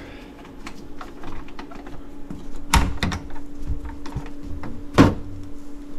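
Metal clamp latches on a sandblast cabinet's door being unclipped: a string of small clicks and rattles with two sharp clacks, about three seconds in and near the end. A steady hum sits underneath.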